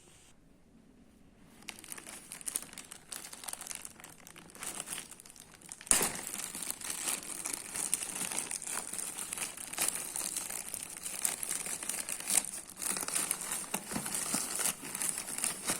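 Parcel packaging crinkling and tearing as it is unboxed by hand, starting after a brief hush, with a louder snap about six seconds in.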